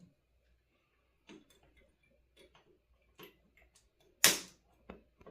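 A handful of light clicks and taps from small tools and electronic parts being handled on a workbench during kit assembly, with one sharper, louder click about four seconds in.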